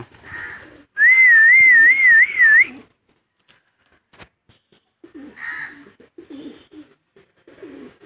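A loud warbling whistle, wavering up and down about three times a second, held for under two seconds starting about a second in, at a flock of feeding pigeons. Softer pigeon cooing follows.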